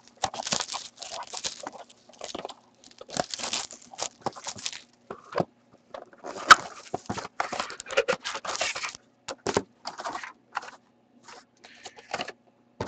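Plastic shrink wrap crinkling and tearing as it is pulled off a sealed Panini Titanium hockey card box, then the cardboard box being opened and its foil packs handled: irregular rustles and crackles, with one sharp snap about six and a half seconds in.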